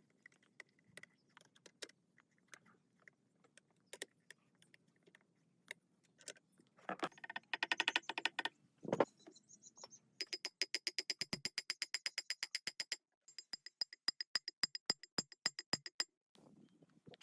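Small metallic clicks and taps: scattered at first, then a fast, even run of ringing clicks, several a second, that pauses briefly and resumes before stopping.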